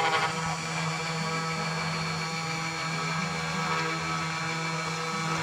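Ortur Aufero CNC router's spindle motor running with a steady whine while its bit carves into a wooden board.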